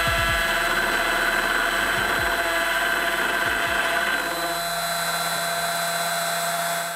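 Makita router spindle running on a DIY CNC mill: a steady high-pitched motor whine that drops a little in level about four seconds in.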